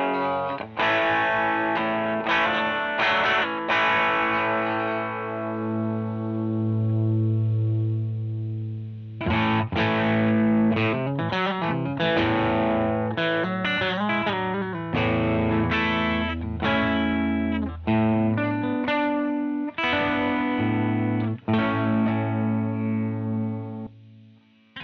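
Electric guitar played through a Joyo JF-22 Oxford Sound, an Orange-amp-style drive pedal, with a distorted tone. It plays chords that ring out, then a quicker riff in the middle, then ringing chords again, and the sound dies away near the end.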